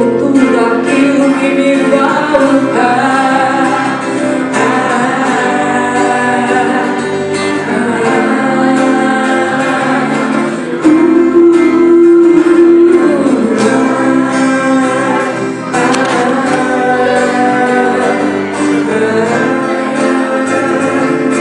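Live band playing a song: a woman singing into a microphone over guitars, amplified through PA speakers.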